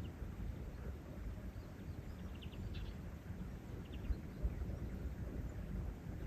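Small birds chirping in short bursts a few times, over a steady low rumble of outdoor background noise.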